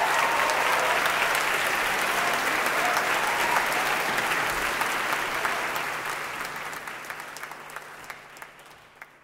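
Concert-hall audience applauding at the end of a song: dense clapping at first, thinning to scattered single claps and fading out near the end.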